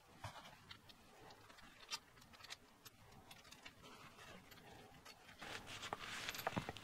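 Faint small clicks and the rubbing of a cloth rag wiping a motorcycle fork's top cap clean, the rubbing growing louder near the end.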